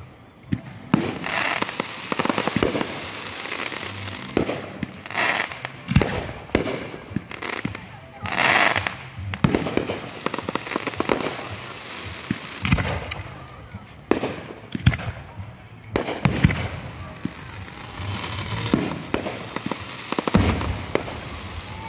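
Consumer aerial fireworks bursting overhead: a quick string of sharp bangs, one every second or so, with crackling between the louder reports.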